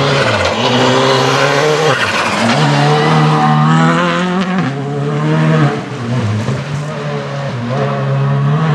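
Škoda Fabia Rally2 Evo rally car's turbocharged four-cylinder engine at full throttle on a gravel stage. The engine note repeatedly climbs and drops through quick gear changes. Loose gravel hisses and sprays from the sliding tyres underneath.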